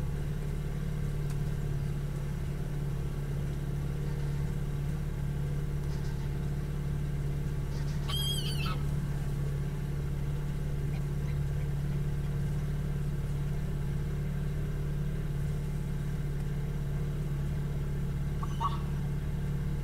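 Motor cruiser's engine running steadily at slow river cruising speed, a constant low hum. A short bird call sounds about eight seconds in, and a faint chirp comes near the end.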